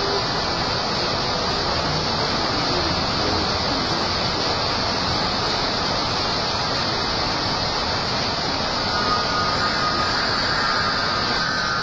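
Heavy rain falling steadily, a dense even hiss, with the low rumble of street traffic and bus engines underneath.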